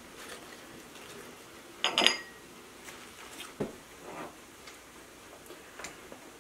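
Glass canning jars clinking as blanched greens are packed into them with metal tongs and a wooden spoon: one sharp, ringing glass clink about two seconds in, then a few softer knocks.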